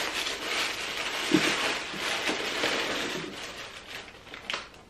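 Paper and card packaging rustling and crinkling as a gift box is unpacked by hand, with a couple of light knocks; the rustling dies down near the end.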